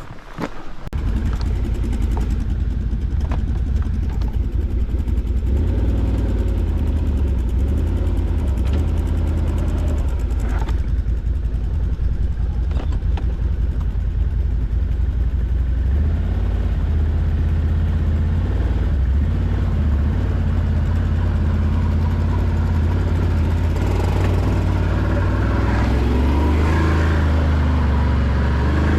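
ATV engine running under way, a steady low drone with small shifts in pitch as the throttle changes; it comes in loud about a second in.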